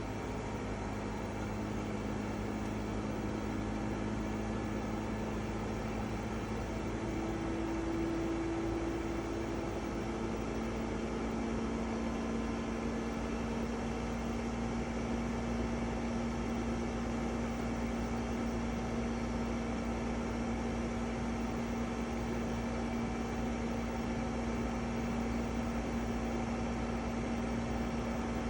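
EcoFlow WAVE portable air conditioner running: a steady noise under a humming tone that shifts in pitch around eight seconds in, then holds steady. This is the unpleasant, loud noise the unit is complained of for.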